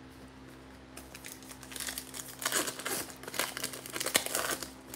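Foil wrapper of a Panini Prizm football card pack crinkling and tearing as it is handled and ripped open, starting about a second in, with one sharp snap near the end.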